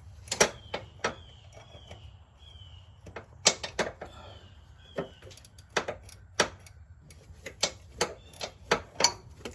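Ratchet wrench with a 13 mm socket clicking in short, irregular strokes, a few clicks at a time, working loose a bolt on a car's power steering line.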